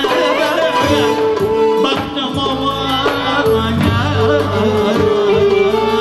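Live Turkish folk music in the dağlı style: violins and clarinet play a wavering melody over held notes, with a davul drum and a man singing into a microphone.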